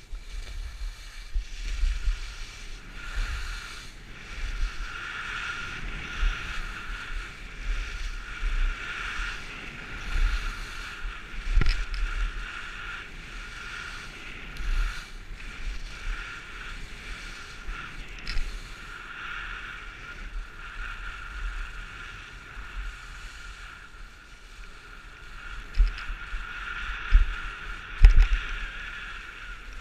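Skis scraping and hissing over groomed snow as the skier carves turns, the swish rising and falling with each turn, over a low rumble of wind buffeting the microphone. A few sharp knocks come near the end, the loudest about two seconds before it.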